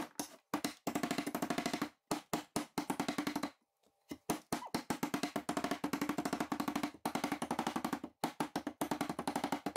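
A hammer rapidly striking soapstone chunks in a plastic conduit ring on a steel plate, crushing the stone into fine grit for inlay. The strikes come in fast runs broken by short pauses, the longest about a third of the way in.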